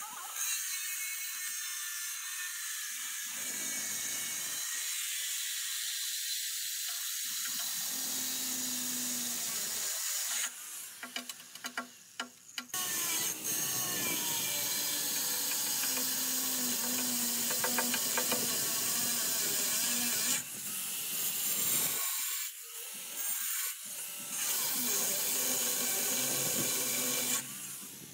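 Electric angle grinder with a sanding disc sanding a granite countertop: a steady high rasping whine that eases off twice partway through and stops near the end as the tool is lifted away.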